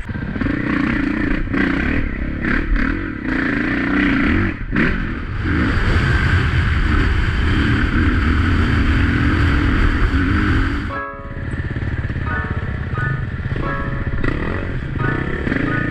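Dirt bike engine heard from the bike itself, revving up and down over rough trail for the first few seconds, then held at steady revs for several seconds. About eleven seconds in the sound breaks off sharply, and music with a melody then plays over the engine.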